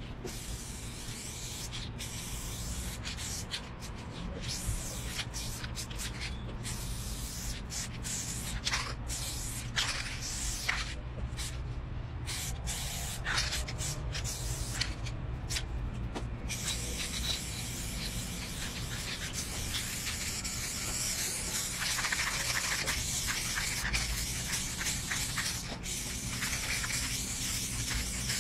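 Aerosol spray paint can hissing onto a wall, in short spurts with brief pauses at first, then spraying almost without a break from a little past halfway on.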